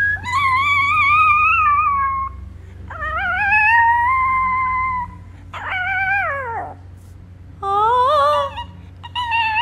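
Chihuahua howling: five high-pitched howls, the first two held about two seconds each, the third sliding down in pitch, then two shorter wavering ones.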